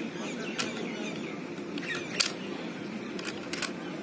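Metal parts of an INSAS rifle's action being handled: about six sharp clicks at irregular intervals, the loudest a little over halfway through.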